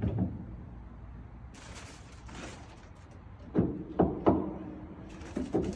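Knocks and thuds of a grand piano leg being handled and fitted to the piano's underside, with rustling of the packing wrap in between. The loudest knocks come as a quick group of three about three and a half seconds in, each leaving a short low ring.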